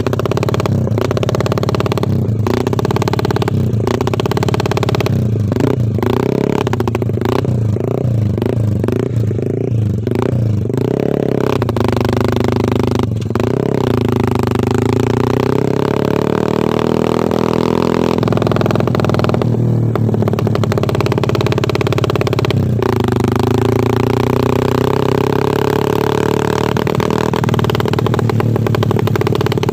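Honda Sonic 150R motorcycle's single-cylinder engine running, its exhaust tuned to sound like a helicopter: a quick, even chopping throb for the first dozen seconds or so, then a steadier note that slowly rises and falls in pitch.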